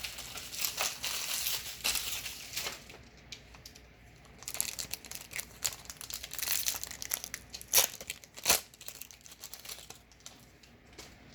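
Crinkling and crackling of a booster pack's foil wrapper being handled and torn, with two sharp snaps about eight seconds in.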